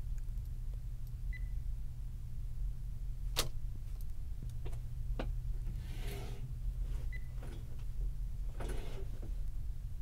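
Steady low hum with a sharp click a few seconds in, a few fainter clicks, and two brief rustles of paper case files being handled.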